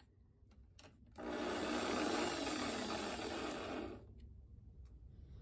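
Power drill motor running for about three seconds, spinning the brass head of a 12 gauge shotgun shell mounted on a hex bit extension, starting and stopping abruptly after a light click.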